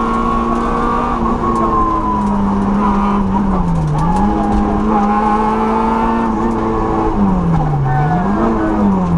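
Peugeot 106 rally car's four-cylinder engine heard from inside the cabin, pulling hard at high, steady revs. The revs dip sharply and recover about four seconds in, then near the end fall and climb again twice.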